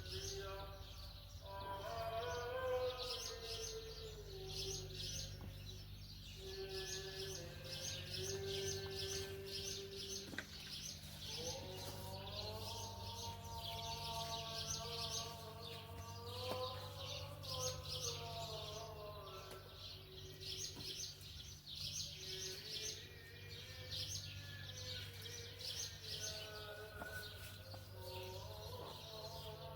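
Small birds chirping rapidly and continuously over a slow melody of long, gliding notes, with a steady low hum underneath.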